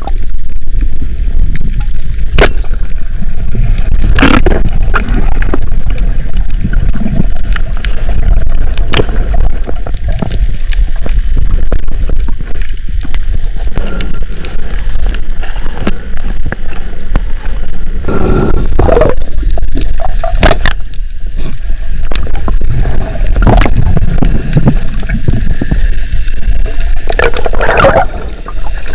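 Underwater sound picked up by a diving camera: a loud, constant low rumble of water with gurgling and sharp clicks and pops every few seconds.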